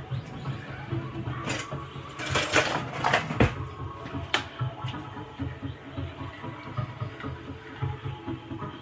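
Electronic dance music with a steady thumping bass beat playing in the background. Over it come a few sharp clatters of kitchen utensils and cookware in the first half.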